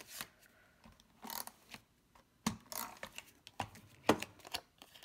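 Cardstock and a tape runner being handled on a tabletop: a series of short, scattered rustles and clicks as adhesive is run onto the back of a paper circle and the runner is set down.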